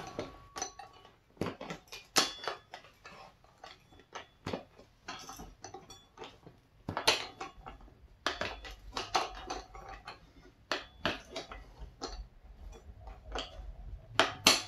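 Tire iron and no-pinch tool clinking, knocking and scraping against the rim and spokes as the tire bead is levered down over a dirt bike rim: irregular metallic clicks with rubbery handling noise between them.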